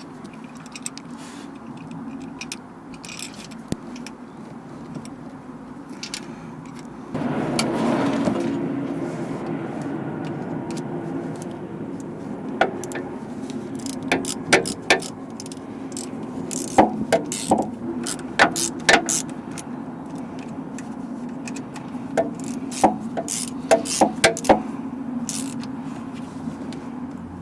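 Hand tools clicking and clinking in short clusters while a new spark plug and coil pack are fitted to a Porsche 996 flat-six engine, over a steady low hum that grows louder about seven seconds in.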